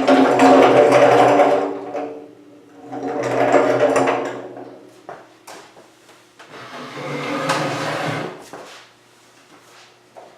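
A small electric motor running in three bursts of a second or two each, with a few clicks and knocks between them.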